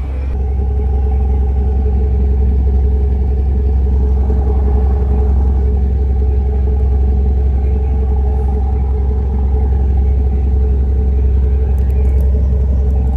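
A boat's engine running hard and steadily while the vessel goes astern: a heavy low rumble under a constant drone. It swells slightly in the first second, then holds level.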